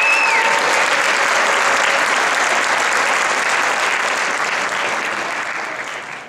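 Concert audience applauding, with a short rising-and-falling whistle just at the start. The applause fades out near the end.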